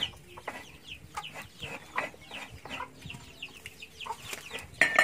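Chickens clucking and chirping: a run of short, high, falling chirps several times a second, with a louder call near the end.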